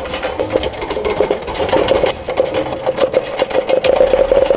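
Hand-pumped hydraulic shop press working as it pushes a tapered roller bearing onto a differential drive pinion: rapid mechanical clicking over a steady tone that grows stronger near the end.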